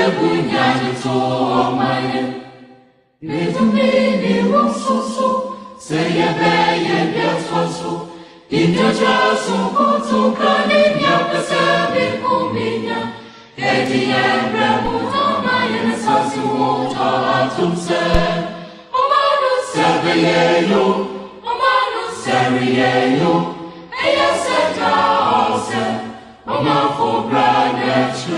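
Choir singing as music, voices in harmony in phrases of a few seconds with short breaks between them.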